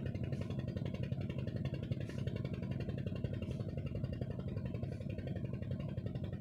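A small engine running steadily at an even speed, a low drone with a fast, even pulse.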